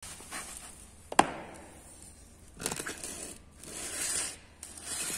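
Handling noises: a sharp knock about a second in, then scattered rustling and scraping sounds.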